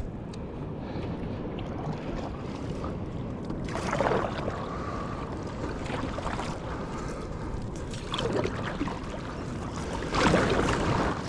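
Paddleboard paddle strokes in choppy sea water: four swishing splashes about two seconds apart, the first a few seconds in, over steady wind and water noise.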